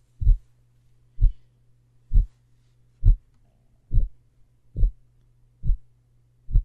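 Recorded heart sounds of mitral regurgitation: a regular heartbeat of about 65 to 70 beats a minute, each beat a low thump, carrying the systolic murmur heard at S1. A faint steady low hum runs underneath.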